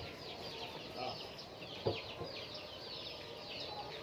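Flock of laying hens calling, many short high falling chirps overlapping in a steady chorus, with a single knock about two seconds in.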